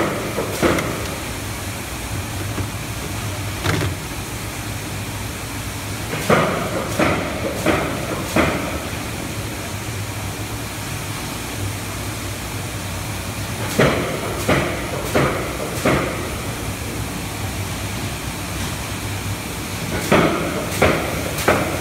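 Steady running hum of a leafy-greens cutting and conveyor line, its electric gear motors driving the belts, with clusters of sharp knocks and clatters from the machinery every few seconds.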